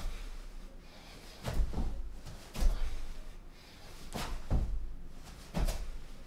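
Dull thuds of feet and hands landing on a floor mat during fast burpees, several impacts about a second apart as the body drops to a plank and jumps back up.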